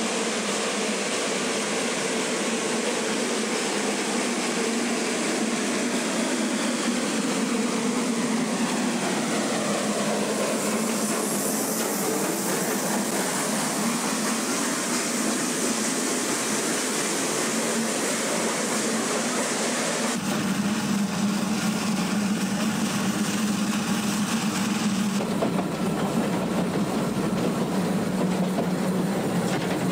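Steam locomotive on an Abt rack railway running past, with a pitch that falls as it goes by about ten seconds in, followed by its carriages rolling past on the track. The sound changes abruptly twice in the second half, to the running noise of the train heard from on board.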